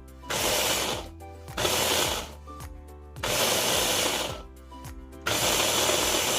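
Countertop blender pulsed in four short bursts of about a second each, its blades chopping dry old-fashioned rolled oats into a coarser meal.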